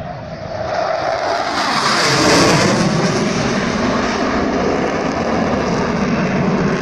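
Military jet aircraft making a pass over the field: its engine noise swells over the first two seconds, falls in pitch as it goes by, then holds as a steady loud rush.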